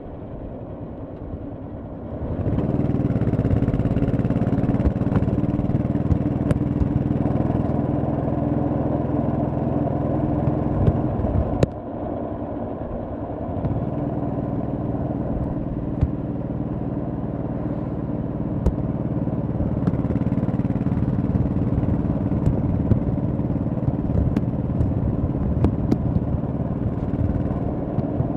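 Honda Shadow V-twin motorcycle engine running under way on the road. It gets louder about two seconds in, drops off briefly about halfway through, then picks up and runs steadily again.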